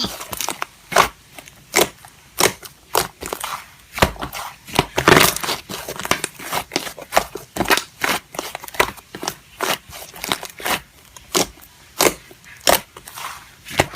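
Slime being squeezed and poked, giving an irregular string of sharp clicks and crackling pops.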